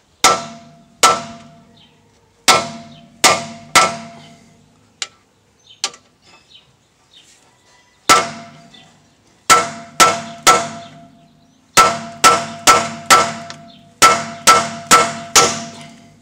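A hammer striking a steel bearing race driver, driving a new axle shaft bearing into a Chevy Tahoe's rear axle tube: about twenty sharp metallic clangs, each ringing briefly, in bursts of two to five blows with short pauses between.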